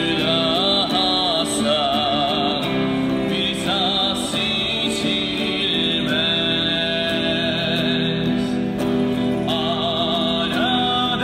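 A man singing a slow melody, with held and wavering notes, into a microphone over an amplified electric guitar.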